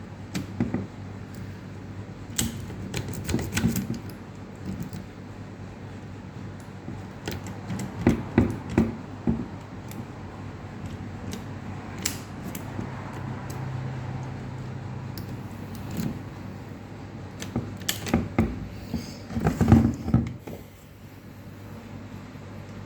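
A metal key clicking and rattling in a sticking Toyota ignition lock cylinder as it is worked back and forth toward the ACC position. It comes in scattered clusters of sharp clicks, the busiest stretch near the end.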